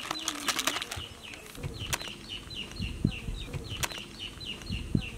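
Butter wrappers crinkling and rustling as butter is squeezed out of them, densest in the first second, with a few dull low thumps. From about a second and a half in, a bird calls in the background, a quick series of short down-sliding high notes, about three or four a second.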